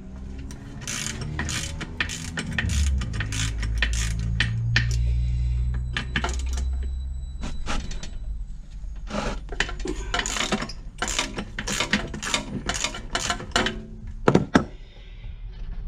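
Ratchet wrench clicking in quick runs while undoing the oil pan bolts of a 12 hp Briggs & Stratton engine, with a low rumble underneath for several seconds in the first half.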